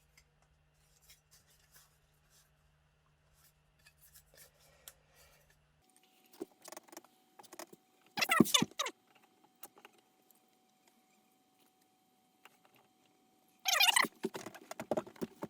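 Handwork on a car's centre console: scattered small clicks and taps, then two short bursts of scraping or rubbing, one about halfway through and a longer, louder one near the end.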